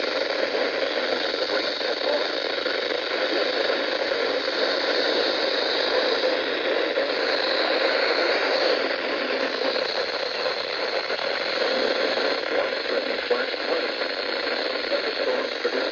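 Steady radio static: an even hiss from a radio receiver, with no alert tones or clear speech.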